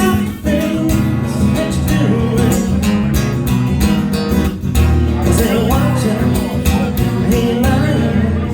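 Live band music with guitar over heavy bass notes and a steady beat.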